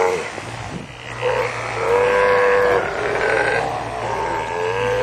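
Sea lions calling: a series of drawn-out, mooing bellows, one long one in the middle and a rising one near the end.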